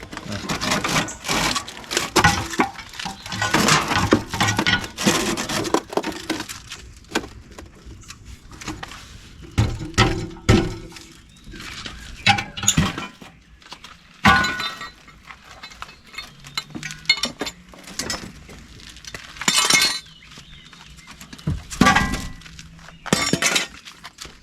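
Metal clanking, banging and crunching as an old central air conditioner is torn apart for scrap, its metal parts struck, bent and pulled loose. A dense clatter for the first several seconds gives way to separate loud hits with pauses between them.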